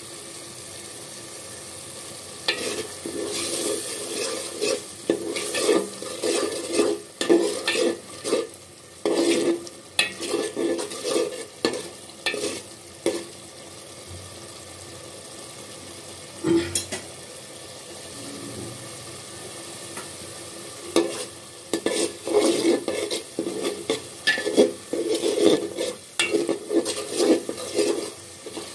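Spatula stirring and scraping through spice gravy frying in oil in a pot, over a steady sizzle. The scraping comes in quick bursts in two spells, with a quieter stretch of sizzling in the middle.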